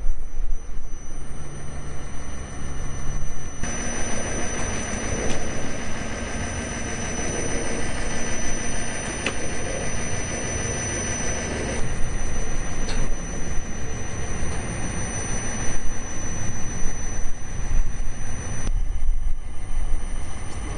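Steady mechanical noise with rumble and a thin, high, steady whine, changing abruptly in character several times.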